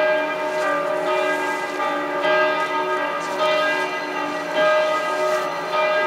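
Several church bells ringing together, their strokes overlapping and ringing on, with a fresh stroke about every second.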